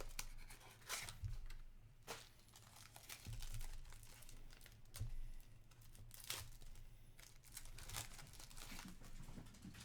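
Wrapping on a box or pack of hockey trading cards crinkling and tearing open, with scattered small crackles and rustles as the cards are handled.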